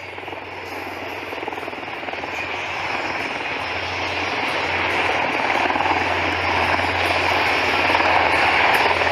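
Engine and rotor noise of a C-130-type four-engine turboprop tanker flying with two Black Hawk-type helicopters: a steady low hum under a broad rushing drone, growing steadily louder as the formation approaches.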